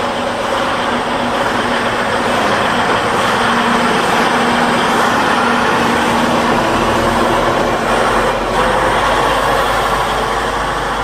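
Western Star dump truck's diesel engine running steadily as the truck pulls away across gravel, with a continuous engine drone under broad road and tyre noise.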